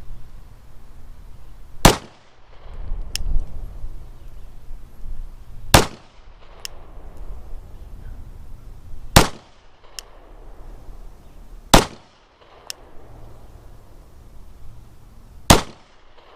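Glock 19 9mm pistol fired five times, single deliberate shots spaced about three to four seconds apart, each with a short echo.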